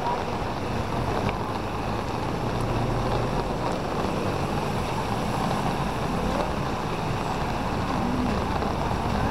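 Street ambience: a steady hum of traffic, with engine rumble and tyre noise on a wet road, and wind noise on the microphone.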